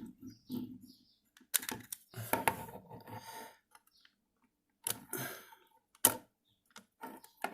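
Plastic game-controller shell being pried apart: a series of separate clicks and short scrapes as the case clips are levered open with a pry tool.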